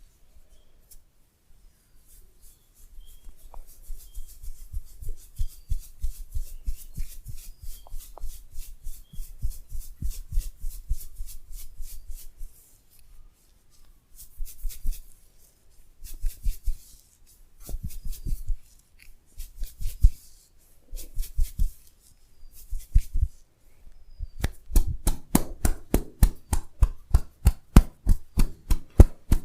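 Percussive massage: hands striking the body in rapid rhythmic tapping and chopping strokes, several a second, each a dull thump with a slap. The strokes come in bouts of a few seconds and grow faster and louder near the end.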